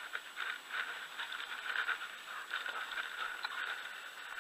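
Faint, irregular crunching and rustling of footsteps on a dry dirt road over a steady outdoor hiss.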